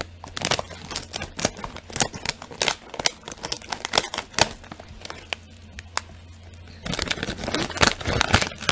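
Scissors snipping through a plastic snack bag in a series of short, sharp cuts, then the foil-lined bag crinkling as it is pulled open by hand, louder, about seven seconds in.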